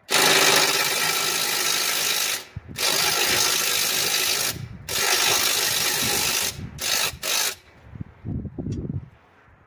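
Handheld power tool working bolts out of a lawn mower. It runs in three long pulls of about two seconds each, then gives three short blips near the end.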